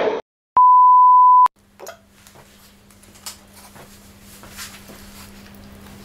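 A single edited-in bleep, one pure steady tone about a second long, right after the sound cuts out; it is the loudest thing here. After it come faint scrapes and taps of a fork spreading tuna over rice on a seaweed sheet, over a low steady hum.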